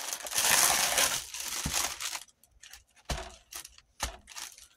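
Plastic crinkling and rustling as it is handled, for about two seconds, followed by a few short light knocks.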